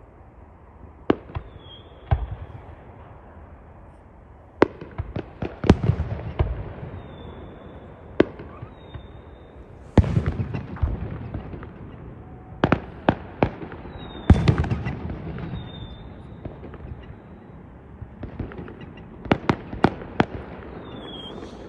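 Fireworks going off: a series of sharp bangs, several in quick clusters, some followed by crackling that dies away, with short high whistles in between.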